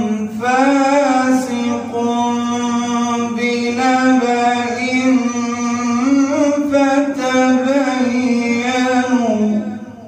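A man's voice chanting the Quran in melodic tajweed recitation, holding long, drawn-out notes with small ornamented turns. The voice fades away at the close of a verse just before the end.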